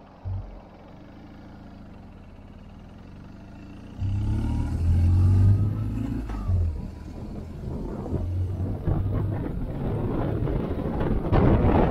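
Motorcycle engine, quiet at first, then suddenly louder about four seconds in and rising in pitch as it accelerates, with wind buffeting the microphone toward the end.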